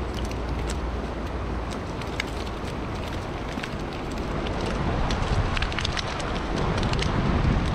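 Water pattering and splashing, a steady crackle of many small drops, growing a little louder over the last few seconds.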